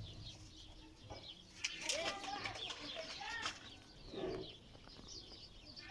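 Birds in a pigeon loft calling, many short arched calls overlapping, with a brief burst of sharp flutters or clicks about two seconds in.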